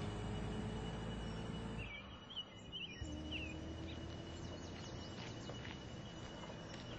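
Outdoor background noise: a low steady rumble with short bird chirps over it. The rumble drops out for about a second, two seconds in, then returns.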